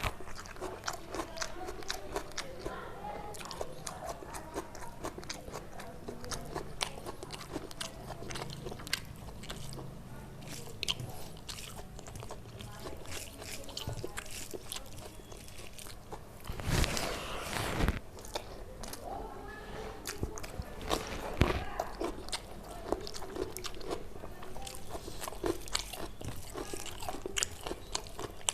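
Close-miked eating: a person chewing and biting rice, chicken curry and raw cucumber-and-onion salad, with many small wet mouth clicks and crunches. There is a louder crunchy bite a little past the middle and another a few seconds later.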